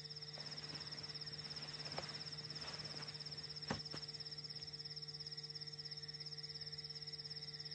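Crickets chirping in a steady high trill over a low steady hum, with a faint click about halfway through.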